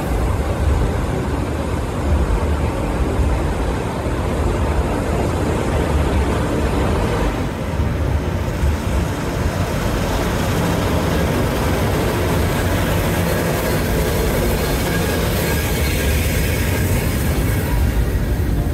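Mount Washington Cog Railway train noise: a steady, loud rumble and rattle as a second cog train with its coal-fired steam locomotive passes close alongside the coach.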